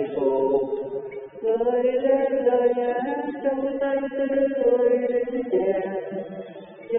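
A solo voice singing a Vietnamese song in long, drawn-out notes over musical accompaniment, with a brief pause between phrases about a second in and again near the end.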